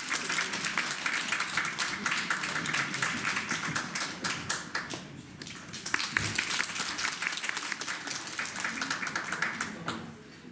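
Audience applauding: a dense patter of claps that eases briefly about halfway through, swells again, then fades out near the end.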